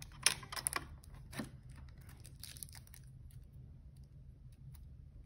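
Clear plastic packaging crinkling as small plastic toy accessories are handled and pulled from it, with a few sharp crackles in the first second and a half, then fainter rustling.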